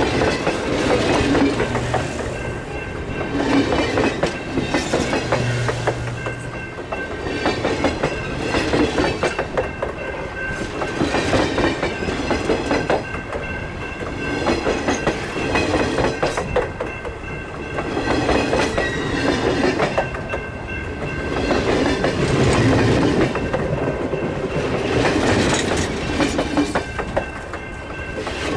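Railroad passenger cars rolling past close by at track level, their wheels clacking over the rail joints. The clatter swells every couple of seconds as sets of wheels go by, with a thin steady high ring over it.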